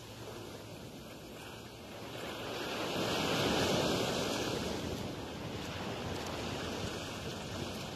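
Ocean surf breaking and washing up a sandy beach, a steady rush that swells to its loudest about three to four seconds in, then eases.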